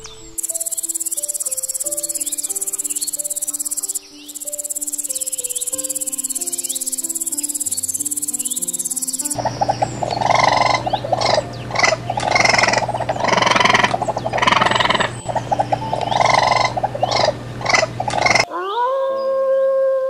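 A steady high insect trill over soft background music, with a short break about four seconds in. Around nine seconds in it gives way to loud, noisy animal calls pulsing about once a second. Near the end a gray wolf starts a long howl that rises and then holds its pitch.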